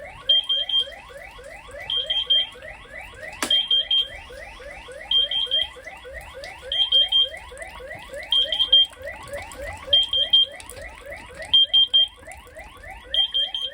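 Electronic alarm sounding without letup: a rapid run of rising chirps, several a second, with a bright high-pitched triple beep about every one and a half seconds. A single sharp click comes a few seconds in.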